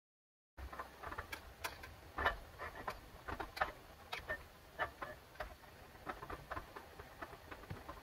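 Chopsticks tapping and scraping against a metal cooking pot while stirring noodles: an irregular run of light clicks, several a second, starting about half a second in.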